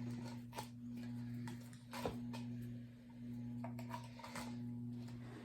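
Faint scattered clicks and little sticky pops of hands handling homemade sticky slime, about half a dozen over the stretch, over a steady low hum.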